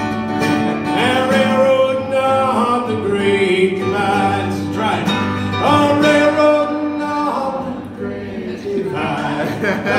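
A man singing a country-folk song over strummed acoustic guitar, holding several long notes.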